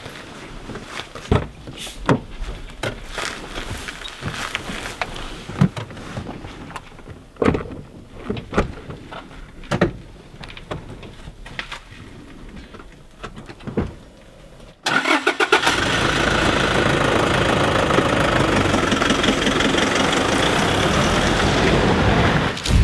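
A run of scattered clicks and knocks. About fifteen seconds in, a Toyota Hilux pickup's engine sets in suddenly, loud and steady, as the truck pulls away close by.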